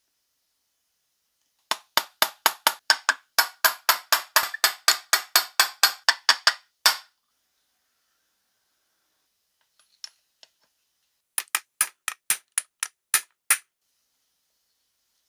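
A rapid run of sharp clicks from handwork on metal parts, about four a second for some five seconds. After a pause, a shorter run of about eight more clicks.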